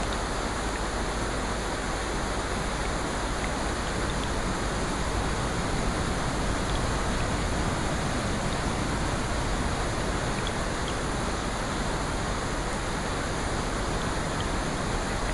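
Steady rushing water noise, even and unbroken, with a few faint scattered ticks.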